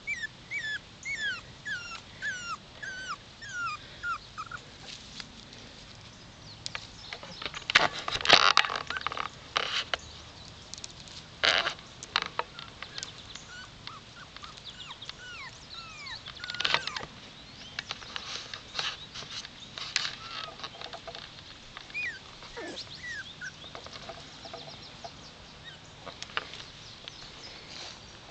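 Young puppies whimpering in short, high, bending whines, about two a second for the first few seconds, with a few more whines later. From about seven seconds in, sharp clicks and knocks come and go, loudest around eight and eleven seconds in.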